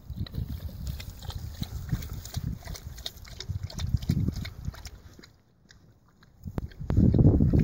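A pig grunting and snuffling as it feeds from a plastic tub, with short smacking clicks throughout. The sound drops off for a moment, then comes back louder near the end.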